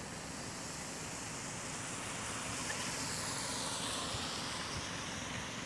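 A car passing close on a wet road, its tyre hiss swelling about two seconds in and fading off near the end.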